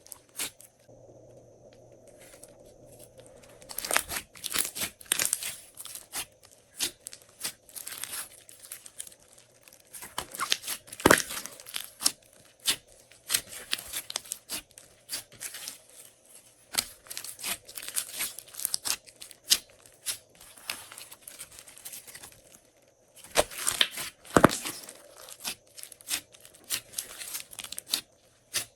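Glossy slime being worked by hand, giving irregular sticky clicks and pops, with a couple of short quiet pauses.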